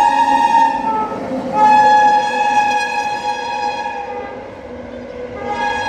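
WAP-7 electric locomotive's horn sounding in long blasts as it passes at speed, over the noise of the moving train. One blast ends about a second in, a second runs from about a second and a half to four seconds, and a third starts near the end.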